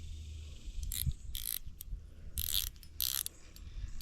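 Fishing reel clicking in several short rasping bursts while a hooked fish is fought.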